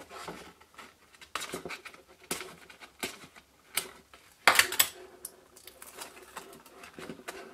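Small scattered clicks and crinkles of paper handling as a scissor tip picks at and peels the backing off an adhesive strip on a cardstock bag. A louder crackle comes about four and a half seconds in.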